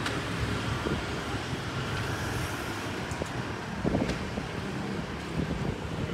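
Honda Winner single-cylinder four-stroke engine running steadily at idle through an aftermarket LeoVince long-can exhaust: an even, low pulsing exhaust note with no revving.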